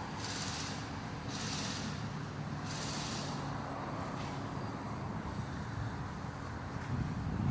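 A cloth scrubbing a plastic headlight lens with cleaner to take off yellowed oxidation: a few hissing rubbing strokes about a second and a half apart, fading after about three seconds, over a steady low hum.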